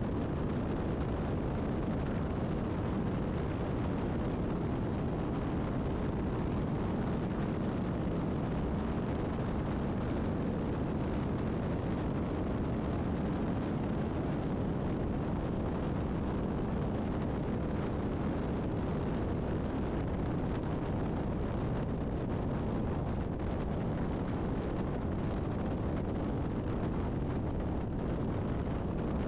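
Steady rush of wind and road noise at highway speed, heavy in the lows, on a microphone moving alongside a semi truck, with no single engine note or sudden sound standing out.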